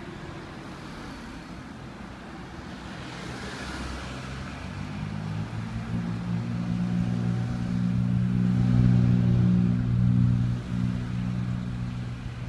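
Road traffic passing close by: a car goes past with a tyre hiss about three seconds in, then a vehicle's low engine drone builds up, loudest about nine to ten seconds in, dips briefly and carries on.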